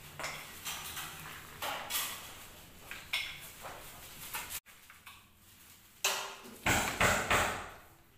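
Irregular knocks and clatter of hand tools and discs being handled on a granite countertop, with no grinder running. The loudest knocks come in a cluster near the end.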